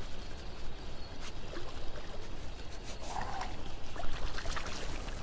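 Creek water trickling and running steadily, with a brief splash-like sound about three seconds in.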